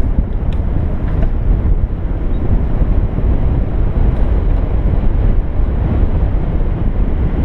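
Wind buffeting the microphone of a camera riding on a moving bicycle: a steady, loud low rumble, with a few faint clicks in the first second or so.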